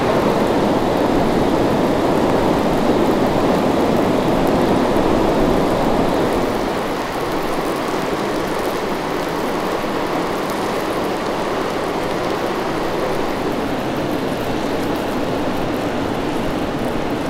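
Steady rushing noise, easing slightly about six seconds in.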